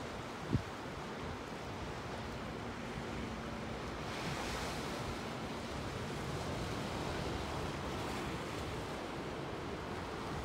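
Pacific surf washing over a rocky shore: a steady wash of breaking waves that swells about four seconds in. A brief low thump sounds about half a second in.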